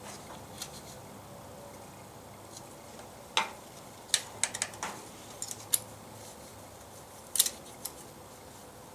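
Light metal-on-metal clicks and taps from the valve train of an International Harvester 354 four-cylinder gas engine as a gloved hand checks rocker-arm play for valve clearance. About a dozen short, sharp ticks come at irregular intervals, bunched in the middle and with a pair near the end; the rocker being checked has a little play in it.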